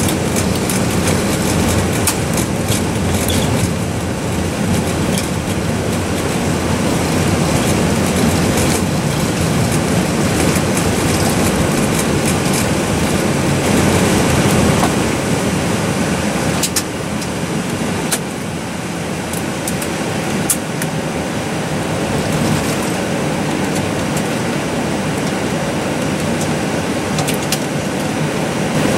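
Airbus A320 flight-deck noise during the landing roll and turn-off: a steady rush and rumble from the engines, airflow and tyres on the runway, with a few sharp knocks. It grows a little quieter about halfway through as the aircraft slows.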